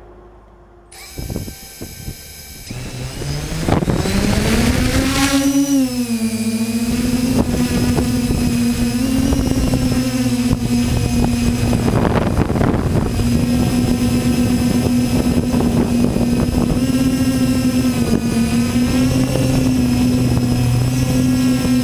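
Electric motors and propellers of a DJI Naza-V2 multirotor drone, heard from its own onboard camera: a few knocks, then about three seconds in the motors spool up in a steeply rising whine for takeoff and settle into a loud steady whine in flight, wavering slightly in pitch.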